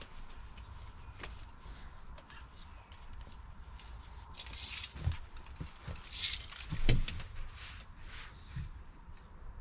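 Quiet handling noise inside a van: soft rustling and scattered small clicks as hands work at a seat-belt buckle and tape measure on a leather bed, with a louder knock about seven seconds in, over a low steady rumble.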